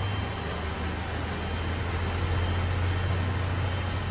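A steady low engine hum, like a vehicle idling, under an even wide hiss.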